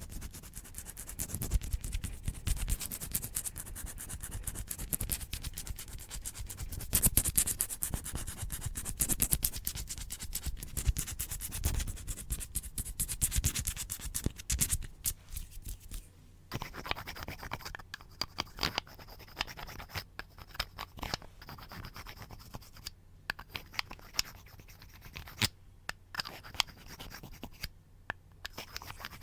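Fast, close-miked ASMR scratching on a surface, dense rapid strokes that change to a sparser, different scratching texture about halfway through.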